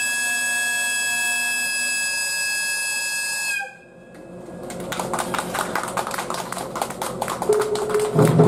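Electric locomotive's air horn sounding one long steady high blast of about three and a half seconds, cutting off abruptly. After it, a rapid irregular clatter of clicks builds up.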